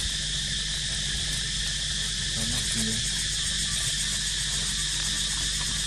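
Steady, high-pitched drone of an insect chorus, with a low steady hum underneath. A couple of faint short calls come about two and a half seconds in.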